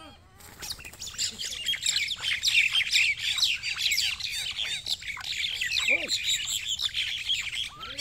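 Common mynas fighting, a dense, rapid stream of harsh squawks and chirps from several birds that starts about half a second in and carries on without a break.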